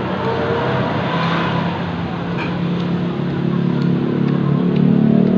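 A motor vehicle engine running, its hum growing louder through the second half, with a few light clinks of spoons against ceramic bowls.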